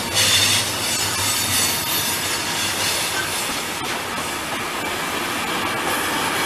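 Container freight train's wagons rolling past on steel rails, a steady rush of wheel noise, with a short burst of high hiss just at the start and one sharp click about four seconds in.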